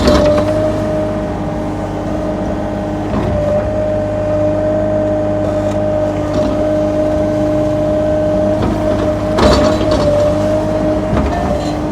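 Sany SY35U mini excavator's diesel engine running steadily at raised throttle while it backfills a hole, with a steady whine throughout. A few short clunks come through, the loudest about nine and a half seconds in.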